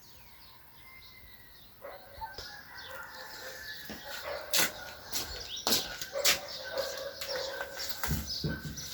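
Animal calls mixed with sharp clicks and knocks, starting about two seconds in after a quiet opening.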